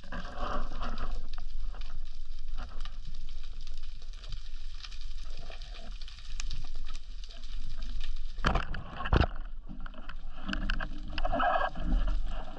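Underwater sound picked up by a camera housing on a speargun during a dive: uneven water rush and scattered sharp clicks, with one louder rushing burst about eight and a half seconds in.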